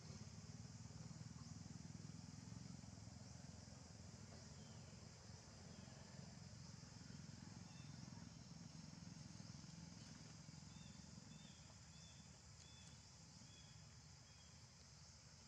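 Near silence: faint outdoor ambience of a steady high insect drone over a low rumble, with a short run of faint chirps about two-thirds of the way in.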